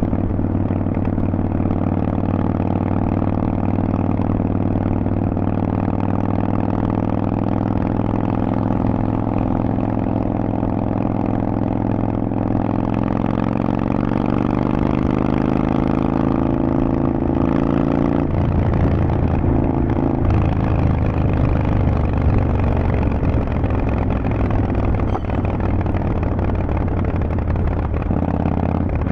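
Harley-Davidson Forty-Eight's air-cooled V-twin running through Vance & Hines exhaust pipes. The pitch holds steady and rises slowly at first. About two-thirds of the way through the sound turns lower and rougher.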